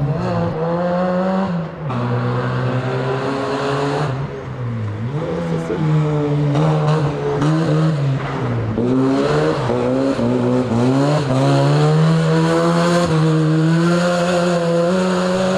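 Rally car engine revving hard under load as the car is driven fast through a stage. The pitch climbs and drops again and again as it shifts through the gears and lifts off for corners.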